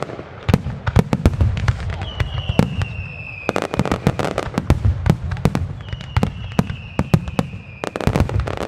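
Fireworks display: a rapid barrage of aerial shell bursts and salute bangs, several sharp reports a second over a steady low rumble. Long high whistles, each falling slightly in pitch, sound three times through it.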